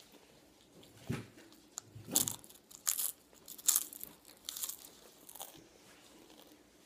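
Biting into and chewing a crunchy lime-and-pepper tortilla chip: about six sharp crunches, roughly one a second.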